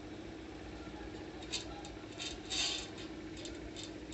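Cat eating fish off a steel plate: short clicks and metallic clinks of chewing and the plate, in small clusters from about a second and a half in, loudest near the middle, over a steady low hum.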